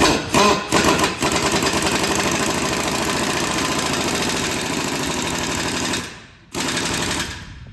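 Pneumatic impact wrench hammering in rapid pulses: a few short bursts, then a long run of about five seconds, a brief stop, and one more burst near the end.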